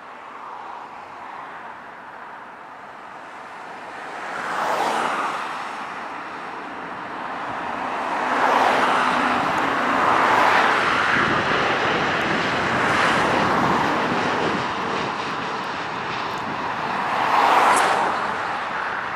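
Boeing 787-8 airliner's Rolls-Royce Trent 1000 turbofans on final approach to land: a steady jet rush that swells and fades several times, loudest as the aircraft passes low overhead in the middle and again near the end.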